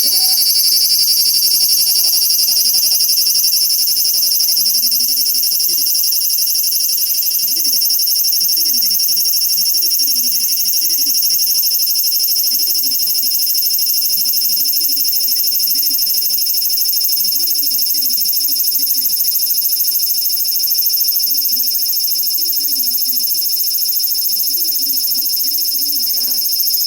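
Large brown cicada (aburazemi) calling: a loud, steady, high sizzling drone that runs on without a break.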